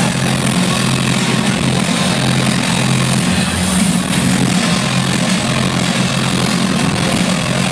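Loud electronic dance music played live through a festival sound system: steady heavy bass tones held under a dense wash of noise, with no breaks.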